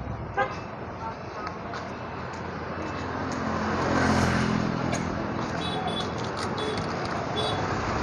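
Roadside traffic: a heavy truck's engine rumbles past, swelling to its loudest about halfway through, over the steady hiss of street noise. A few short high-pitched beeps sound in the second half.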